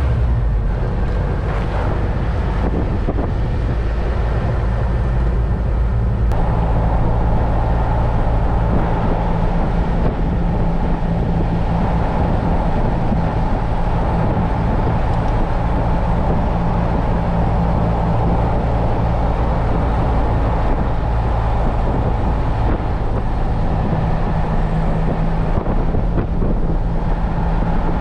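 Jeep Wrangler TJ on the move, heard from inside: steady engine and road noise, with the engine note changing about six seconds in.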